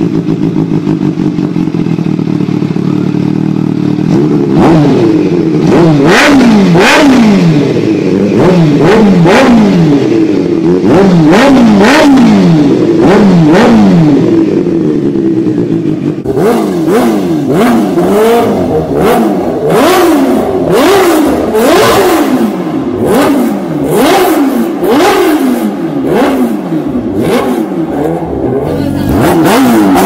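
Supercharged Kawasaki Ninja H2 inline-four engine idling steadily through an Akrapovič slip-on exhaust, then revved in repeated quick blips from about four seconds in, the pitch rising and falling with each blip. About halfway through, the revving turns brighter and the blips come closer together.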